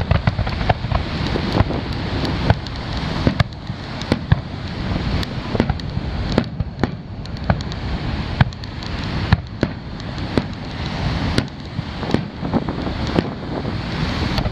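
Fireworks display: sharp bangs from bursting shells at irregular intervals, several close together at times, over a continuous low rumble.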